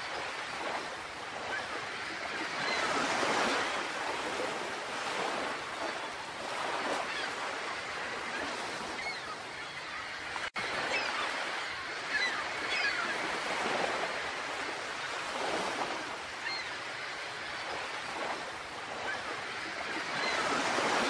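Small sea waves washing onto a beach: a steady rushing hiss that swells and eases every few seconds, with a brief break in the sound about halfway through.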